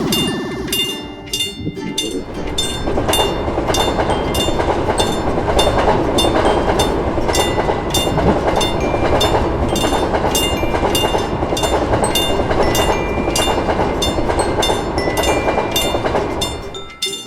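Level-crossing warning bell dinging over and over in a quick, even rhythm, while a train passes over the crossing with a loud steady rumble and rattle of wheels on rail. The train noise starts about two to three seconds in and dies away near the end, while the bell keeps ringing.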